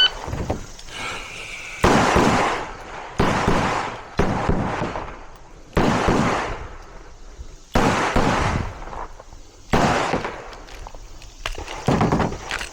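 A string of pistol shots in an IDPA stage, sharp reports coming about every one to two seconds, each trailing a long echo.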